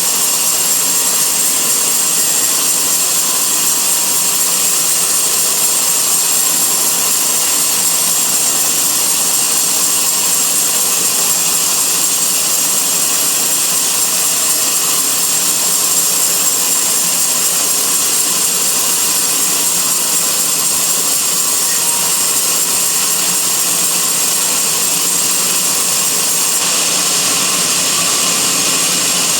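Sawmill band saw running steadily as it cuts a teak log: a loud, even noise with a thin high whine through it.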